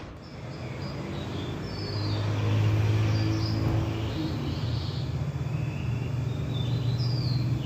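A steady low motor hum that grows louder about two seconds in and then holds, with birds chirping now and then over it.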